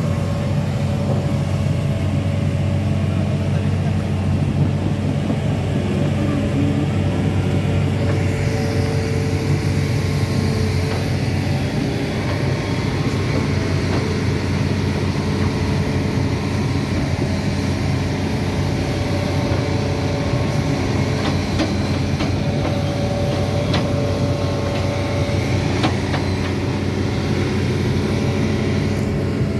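Hitachi Zaxis 210F excavator's diesel engine running steadily and close by as the machine works its arm, with a few sharp knocks in the second half.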